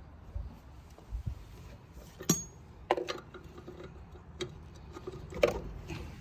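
Sharp metallic clicks and clinks at uneven intervals as a tire-iron lug wrench works on a wheel's lug nut, forced by standing on it to break the tight nut loose. The loudest click comes about two seconds in.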